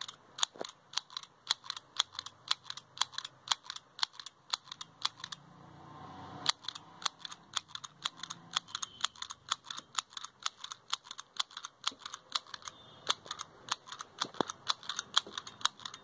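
Handheld stapler-style mini sewing machine squeezed over and over, each stroke a sharp click as it drives a stitch through the fabric, about three clicks a second, with a short break about six seconds in.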